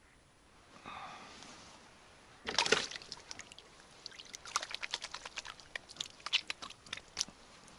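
Water splashing and sloshing: one loud splash about two and a half seconds in, followed by a run of small quick splashes.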